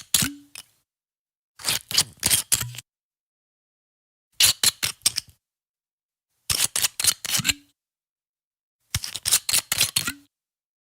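Screw cap being twisted open on an alcohol bottle: bursts of several quick, sharp clicks, each about a second long, repeated four times with silence between.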